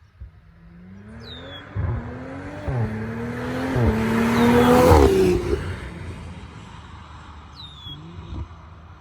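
BMW X3 M40i's turbocharged 3.0-litre inline-six with a BM3 burble tune accelerating hard past, the engine note climbing through two upshifts with a sharp crack at each shift. It is loudest about five seconds in as it passes, then drops in pitch and fades away.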